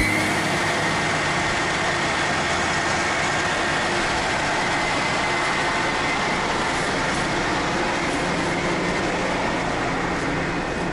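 Don-1500B combine harvester working in barley: its engine and belt-driven threshing machinery run with a steady, dense mechanical noise, a little quieter near the end.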